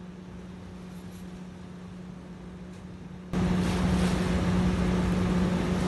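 Steady low hum of running machinery, with a fainter tone an octave above it. A little over three seconds in, it suddenly becomes much louder, with a rushing noise over it.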